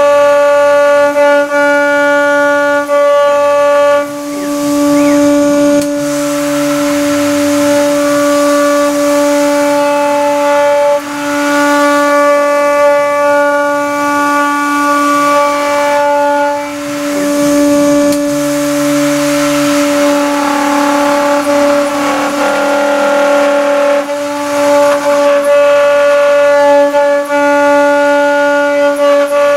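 CNC machine milling 8 mm aluminium plate with a 6 mm single-flute end mill: a loud, steady, pitched whine with many overtones from the spindle and cutter in the cut. Its tone and loudness shift briefly every few seconds.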